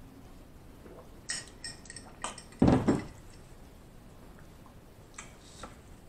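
A drinking glass clinking a few times in quick succession, then a loud, heavy knock about two and a half seconds in, with a couple more light clinks near the end.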